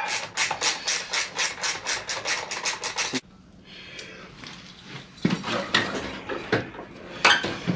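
Ratchet wrench clicking rapidly and evenly, about six clicks a second, as it loosens the small 8 mm side-panel bolts. The clicking cuts off suddenly about three seconds in, followed by a few quieter knocks and handling sounds.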